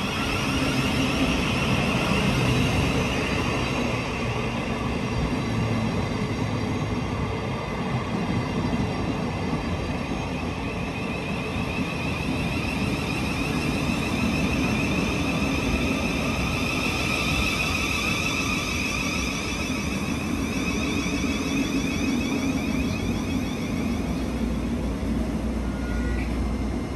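Southeastern Class 707 electric multiple unit, two units coupled, running in along the platform as it arrives: a steady rumble of wheels on rails with a high electric whine over it.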